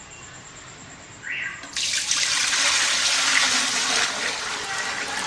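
Settled herbal decoction being poured off its sediment into another vessel: a short splash about a second in, then a steady gush of pouring liquid.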